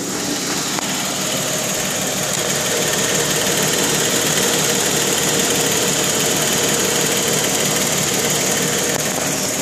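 2012 Jeep Wrangler Unlimited Rubicon's 3.6-litre Pentastar V6 idling steadily, heard at the engine compartment, with a fast, even ticking running through it: an engine tick whose cause the dealers have not acknowledged.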